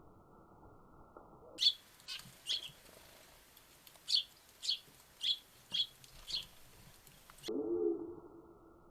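Small songbirds chirping: about eight short, sharp chirps spread over some five seconds, followed near the end by a brief lower-pitched sound.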